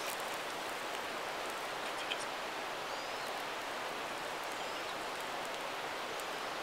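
Steady rushing outdoor background noise, with a few faint crackles and ticks as dry grass, moss and fine twigs catch in a small campfire, one slightly louder tick about two seconds in.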